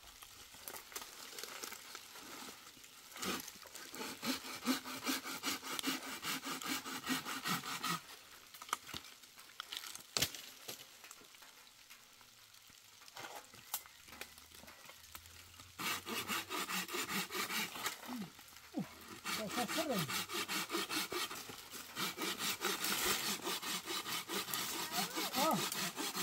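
Hand saw cutting into a tree branch, quick back-and-forth strokes in two long spells with a quieter pause between them.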